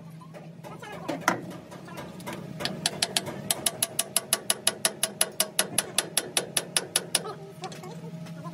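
Rapid, even metal-on-metal tapping, about six light strikes a second, from a hammer driving a punch against the end nut of a truck's hydraulic cylinder. One louder knock comes about a second in.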